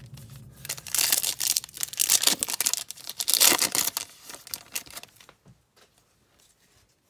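Foil wrapper of a Topps baseball card pack being torn open and crinkled, a loud crackling tear lasting about three and a half seconds, then a few soft rustles that die away.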